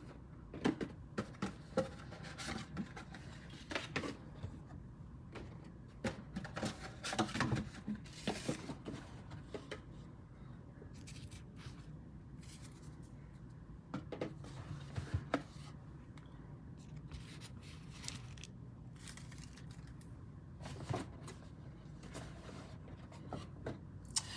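Trading cards and card boxes being handled and set aside on a tabletop: scattered light clicks, taps and rustles, coming thickest in the first several seconds and again in short clusters later.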